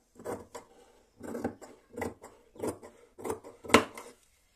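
Metal scissors cutting through cotton cloth in a series of separate snips, about one every half second to second, the loudest near the end.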